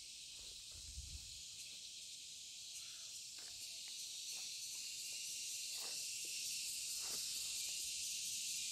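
Steady, high-pitched buzzing of a dense chorus of forest crickets (jhingur), growing slowly louder.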